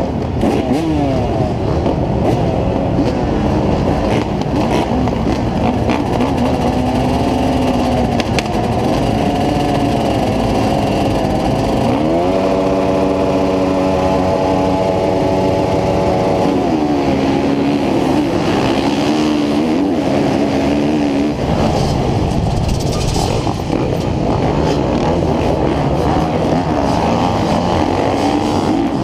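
A gate full of motocross bikes revving, the nearest engine blipped up and down and then held at steady high revs for a few seconds. About three-quarters of the way through, the bikes launch and run hard at full throttle.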